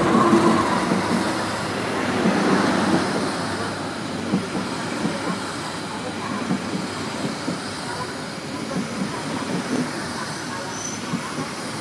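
Gajayana executive passenger train passing close by: its wheels rumble and clack irregularly over the rail joints. The horn's last note dies away at the very start. The noise is loudest in the first few seconds, then settles to a steady rumble as the carriages run past.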